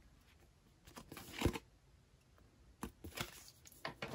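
Stiff paper cards being handled: a brief rustle and slide with a soft tap about one and a half seconds in, then a few light clicks of card against card near the end.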